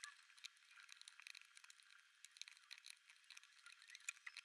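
Faint, rapid, irregular clicks and rattles of cardboard jigsaw puzzle pieces being moved about on a table, played back sped up.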